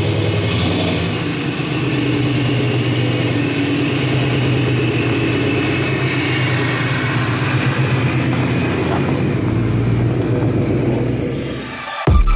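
2011 Ford Mustang's supercharged 5.0 Coyote V8 running steadily at low speed as the car rolls forward. Music with a beat cuts in near the end.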